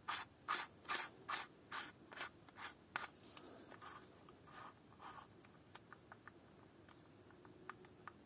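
Keyless chuck of a Parkside PBSA 12 E4 cordless drill being turned by hand, its ratchet clicking about two to three times a second for the first three seconds, then fainter, sparser clicks and ticks.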